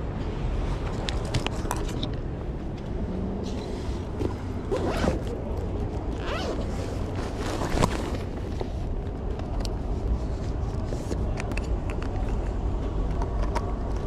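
City street ambience: a steady low rumble of traffic, with scattered clicks and a few short rasping sounds between about five and eight seconds in.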